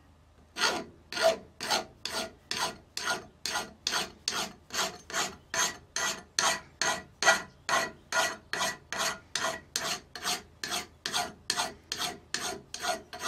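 A hand file rasps across the steel edge of a splitting maul, taking the burrs off the worn blade to sharpen it. The strokes are quick and even, about two and a half a second, and start about half a second in.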